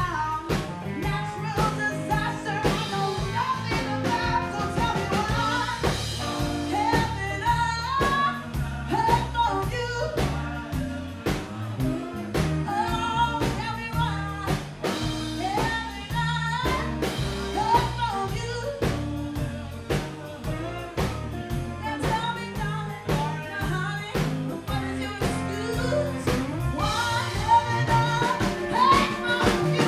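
Live band playing a song, with a woman singing lead over acoustic and electric guitars, bass guitar and a drum kit keeping a steady beat.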